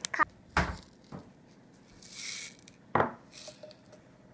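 Scattered soft knocks and clicks of handling, with a short rustling hiss about two seconds in and a louder knock about three seconds in.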